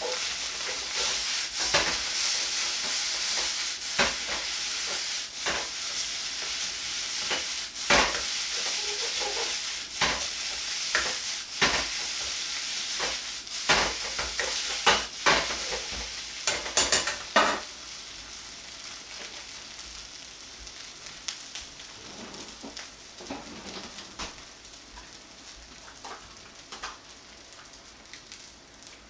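Fried rice sizzling in a wok while a metal ladle stirs and scrapes it, with frequent sharp clacks of the ladle against the pan. After about 17 seconds the sizzle drops quieter and the ladle clacks become only occasional.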